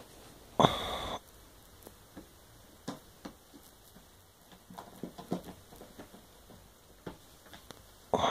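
Faint rustling and scattered small clicks from a person shifting on a bed and reaching out across the bedding, with one short, louder burst of noise about half a second in.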